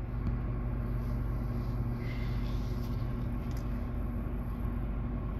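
Steady low hum inside a car's cabin, with a few faint held low tones under it.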